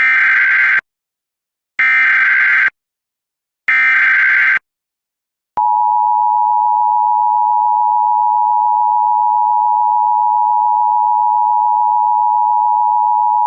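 Emergency Alert System (EAS) SAME header: three bursts of warbling digital data tones, each about a second long and a second apart. Then the EAS two-tone attention signal holds steady for about eight seconds and cuts off sharply, announcing that an emergency alert message follows.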